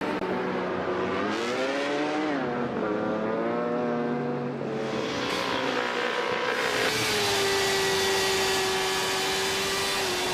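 Racing superbike engine at high revs: the pitch climbs, drops sharply about two seconds in as the rider shifts or backs off, then wavers before holding steady at high revs from about seven seconds in.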